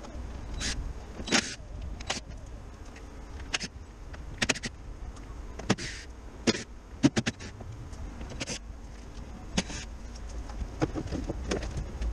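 Scattered sharp metallic clicks and clanks from tools and parts being handled at a car's front wheel hub and brake caliper, irregularly spaced, over a steady low rumble.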